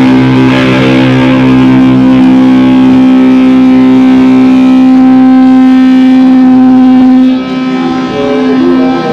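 Live band's distorted electric guitar holding one sustained ringing note with the amplifier up loud, after the drums have stopped; it cuts off about seven seconds in.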